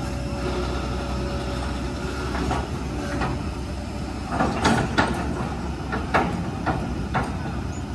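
Kobelco hydraulic excavator's diesel engine running steadily, with a string of sharp knocks and clanks from a few seconds in, the loudest two near the middle.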